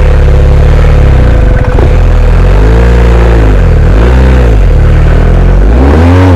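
Twin-cylinder adventure motorcycle engine being revved up and back down three times in short bursts between steady running.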